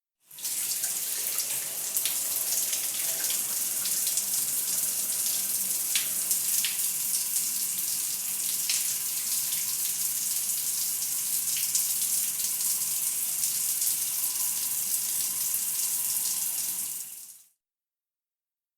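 Shower spray running steadily, a hiss of falling water with the odd sharper splash of drops. It starts just after the beginning and dies away about a second before the end.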